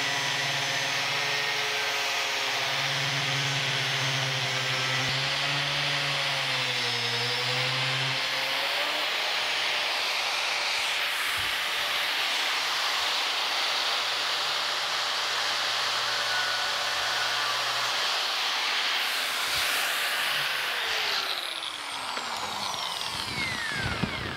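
Angle grinder with an abrasive cutoff wheel cutting through steel, its motor whine sagging briefly under load. Near the end it is switched off and winds down with a falling whine.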